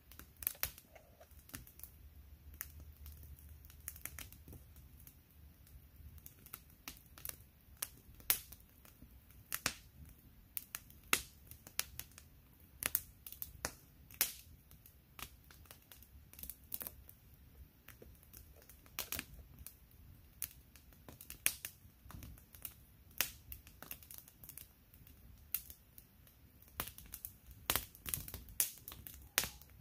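Wood campfire crackling, with irregular sharp pops and snaps, some louder than others.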